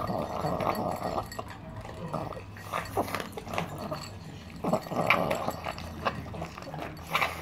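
Small dog eating dry kibble from a ceramic bowl: crunching, with kibble clicking against the bowl. It makes two noisy stretches of about a second each, one near the start and one about five seconds in.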